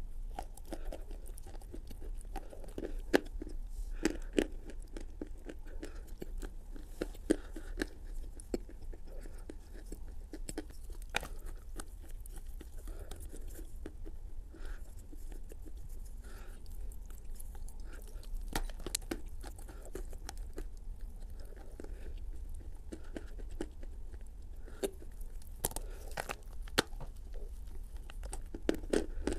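Close-up chewing of Turkestan clay: wet, crumbly crunches and mouth sounds at an uneven pace. Sharper crunches mark bites taken off the chunk, a few of them louder, scattered through.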